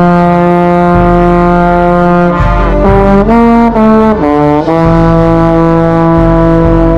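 Bass trombone playing loud, close to the bell, within a marching band's brass section: a long held chord, a short run of changing notes about midway, then another long held chord.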